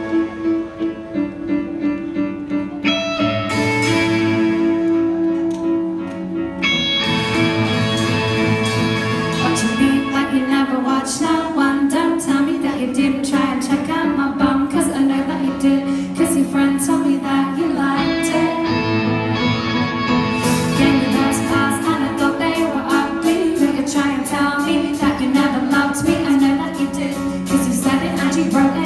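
Live band playing a pop-rock song in a concert hall: a woman singing over keyboard and electric guitar, with drums coming in on a steady beat about two-thirds of the way through.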